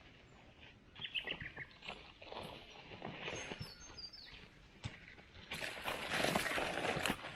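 Birds calling: a short run of chirps about a second in and higher whistled notes around three to four seconds, with a louder rustling noise in the last two seconds.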